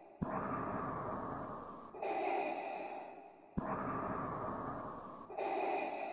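Darth Vader's mechanical respirator breathing, a looped sound-effect sample played from a beat-making app's FX pad. It is a slow, hissing in-and-out through the mask, each half of the breath starting abruptly, two full breaths in all.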